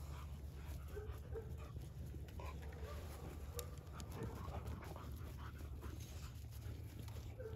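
North American Mastiff puppies at play, making brief scattered whimpers and breathing sounds over a steady low hum.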